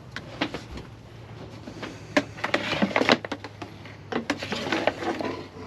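Irregular clicks, knocks and rattles of objects being handled, bunched about two seconds in and again near the end, over a faint low steady hum.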